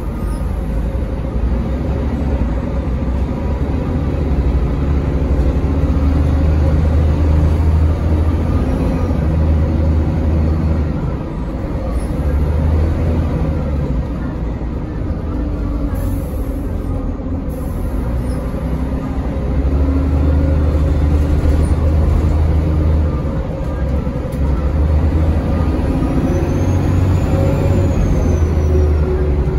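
Mercedes-Benz O405NH city bus heard from inside the cabin while driving: a steady low engine drone with road noise. It swells louder several times as the bus pulls and eases off in between, and a faint high whine rises and falls near the end.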